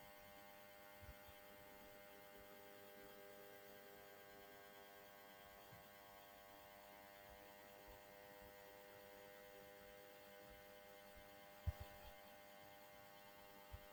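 Near silence: a faint steady electrical hum, broken by two brief soft thumps about three-quarters of the way through.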